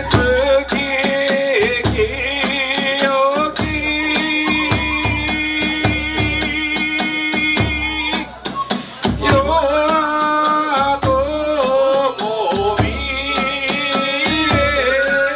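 Kagura hayashi ensemble playing: a bamboo flute carries a wavering, sustained melody over low drum beats and rapid, steady clashing of small hand cymbals. The melody breaks off briefly about halfway through, then resumes.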